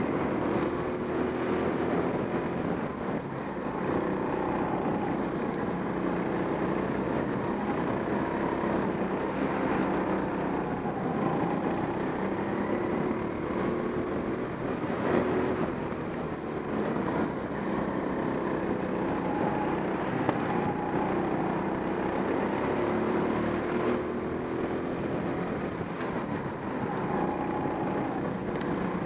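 Go-karts racing, the onboard kart's motor running steadily under throttle, its pitch rising and falling slightly through the corners, with another kart close ahead.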